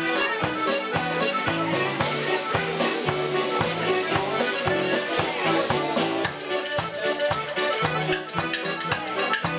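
Irish traditional dance tune played on accordion with drum kit accompaniment, in a steady even beat. The drum strokes become more marked about two-thirds of the way through.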